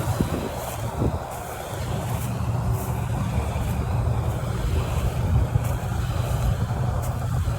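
Engine of a rice-harvesting machine running steadily, a low rumble with a noisy mechanical clatter over it and faint high clicks now and then.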